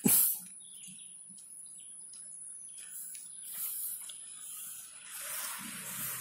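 Open-air ambience: birds chirping over a steady high insect trill. A brief loud rustle or knock comes right at the start, and a motor vehicle is heard approaching near the end.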